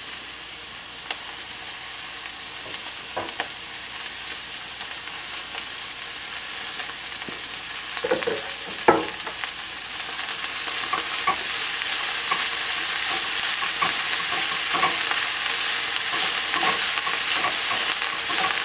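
Dandelion greens and red pepper sizzling in hot coconut oil in a frying pan as they wilt, with a spatula knocking and scraping against the pan while they are stirred. The sizzle grows louder about halfway through, with a couple of sharper knocks shortly before.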